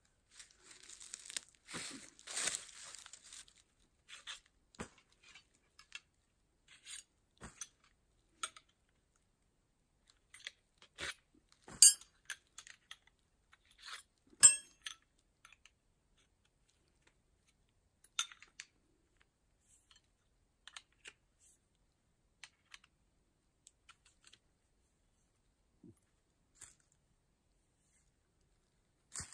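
Heavy canvas being handled and unfolded: a rustling, tearing-like noise in the first few seconds, then scattered sharp clicks, knocks and clinks of gear, the two loudest about halfway through.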